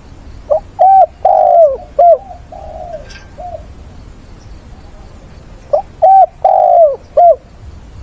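Spotted dove cooing: two phrases of several short, arching coos, each with one longer note, the second phrase starting about five seconds after the first.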